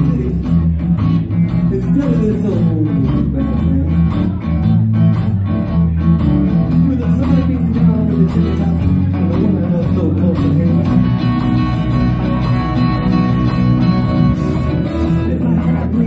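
Live rock band playing: electric and acoustic guitars over a drum kit, with a steady cymbal beat.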